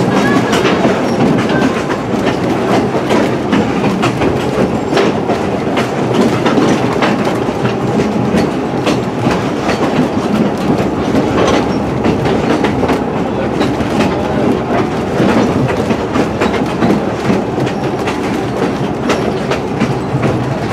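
Two-foot narrow-gauge open passenger car rolling along the track, a steady rumble of wheels on rail with frequent irregular clicks and rattles.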